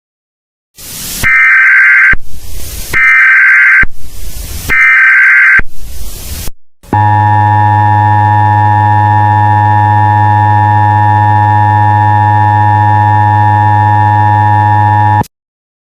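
Emergency Alert System SAME header: three screeching digital data bursts in a row. After a short blip comes a long, steady attention tone of about eight seconds that cuts off abruptly, signalling that an emergency broadcast message follows.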